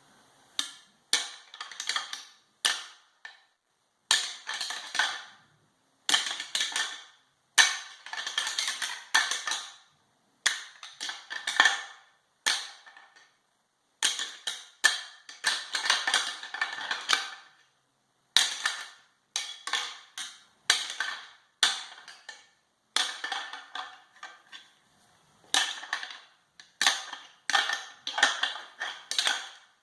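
Whitetail deer antler rattling: antlers clashing, clicking and grinding together in bursts of one to three seconds with short silent gaps between, the sound of two bucks fighting.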